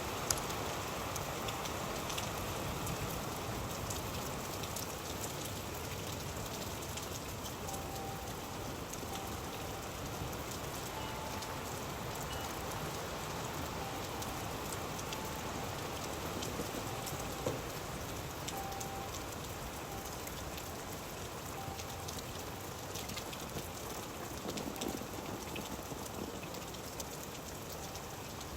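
Steady rain falling, with many individual drops ticking sharply on a surface.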